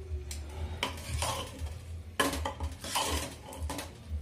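Steel spoon stirring a thick mix of boiled peas and spices in a pressure cooker pot, with irregular scrapes and clinks of the spoon against the metal.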